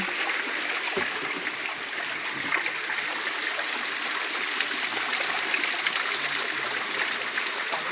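Steady rush of running water from a flowing stream.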